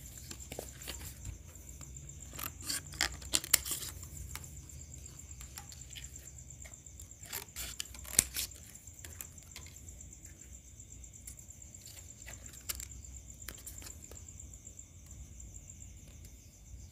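Faint handling clicks and rustles as thin plastic shim strips are slid into the gap between a loudspeaker's new voice coil and the magnet pole, to centre and lock the coil. A faint steady high whine runs underneath.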